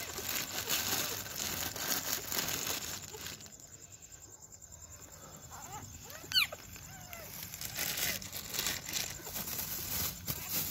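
Plastic packet crinkling and rustling as it is handled, quieter in the middle stretch. About six seconds in comes one short, high squeak that falls in pitch, the loudest sound.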